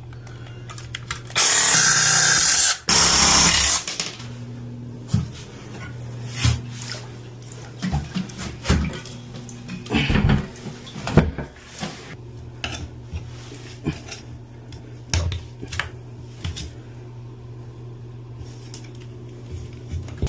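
A power cutting tool cutting off spinning toilet closet bolts in two short bursts, one just over a second in and a briefer one near three seconds, followed by scattered knocks and clicks of hand work over a steady low hum.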